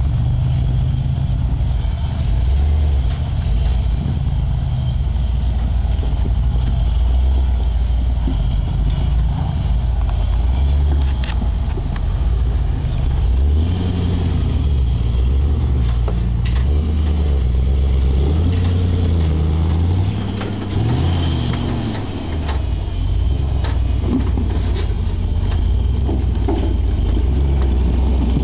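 Early Ford Bronco rock crawler's engine labouring under load as it crawls up over boulders, the revs rising and falling in steps, with a few sharp knocks of tyres and underside on rock.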